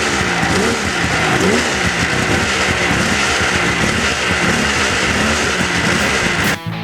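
Polaris XLT snowmobile's two-stroke engine running under way, its pitch rising and falling repeatedly as the throttle is worked. It cuts off abruptly just before the end as music starts.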